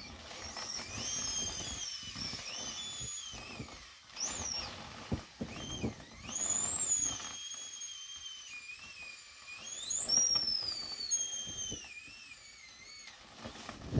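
Squeaky inflatable vinyl bunny being squeezed to deflate: a high, wavering squeal that glides up and down in long stretches, loudest about halfway and again about two thirds in, over soft rustling of the vinyl.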